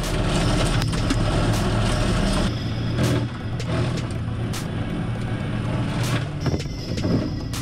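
New Holland TS100 diesel tractor running hard from inside the cab while its hydraulic sideboom rotary cutting head chews through brush and small trees.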